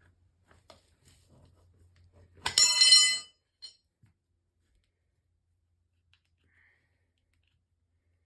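A single metal clang with a bright ringing tone about two and a half seconds in, lasting under a second; otherwise a very quiet room with a faint low hum.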